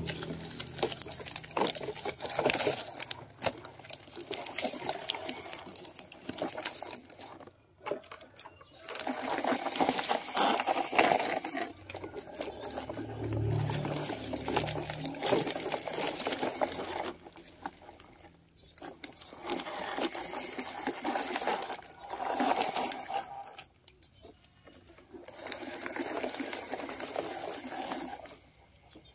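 Plastic toy trucks rattling and rolling over a gravel-and-plastic track, in runs of a few seconds with short breaks between.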